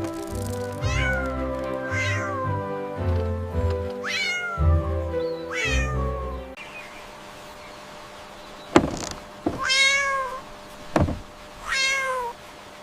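Cat meowing repeatedly, each meow falling in pitch, over background music with a bass line. About halfway through the music stops, and two more meows alternate with three sharp knocks.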